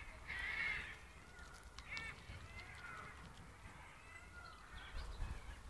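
Birds calling: a few short, harsh calls, the loudest about half a second in and another near two seconds, with fainter ones after.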